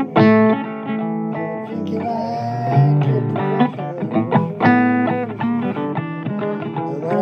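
Blues song in an instrumental stretch: guitar playing a run of picked notes over a bass line, with no singing.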